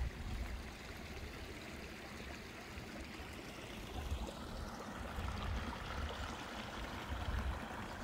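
Shallow rocky mountain stream trickling, its water running low after a drought, with a low rumble on the microphone that comes and goes.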